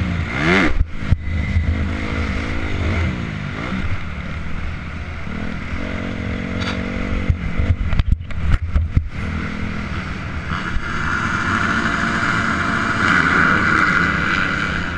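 Motocross bike engine revving up and down as the rider races over the dirt track, pitch rising and falling early on, then held high in the last few seconds. Sharp knocks and clatter come in two clusters, about a second in and again around the middle.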